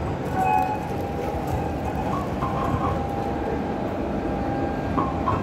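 Busy indoor shopping-mall ambience: a steady wash of crowd hubbub and rumbling background noise, with faint indistinct voices or music in it.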